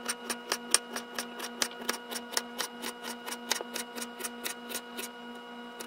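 Kitchen knife slicing a peeled carrot into rounds on a wooden cutting board: quick, even taps of the blade striking the board, about five a second.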